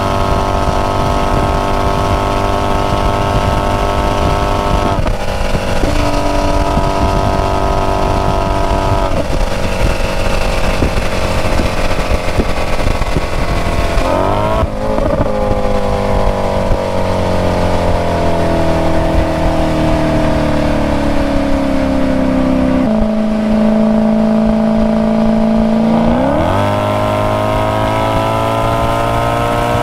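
Maserati Quattroporte Sport GTS's 4.7-litre V8 running at speed, its note holding steady with a few brief shifts in pitch, a quick rise and fall in revs, then slowly dropping revs for several seconds. Near the end the engine revs climb sharply as it accelerates hard again.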